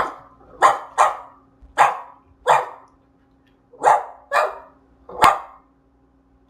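A boy's voice imitating a dog barking: about eight short barks in uneven groups, with a pause of about a second midway.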